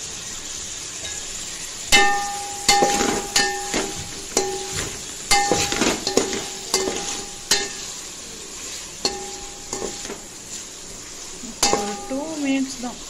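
Sliced onions, mint and coriander leaves sizzling in a hammered aluminium pot while a steel slotted spoon stirs them. The spoon knocks and scrapes against the pot about a dozen times, and many knocks ring briefly.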